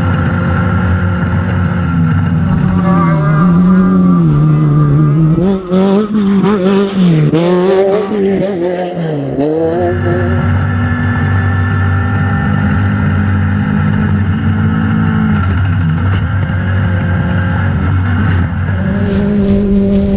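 Off-road race car engine running hard at steady revs, then revs falling and rising several times with knocks and clatter, before settling back to steady revs.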